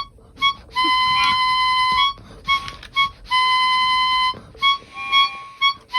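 A single high note, always at the same pitch and flute-like in tone, sounded over and over: two long held tones of about a second each, with short beeps between them.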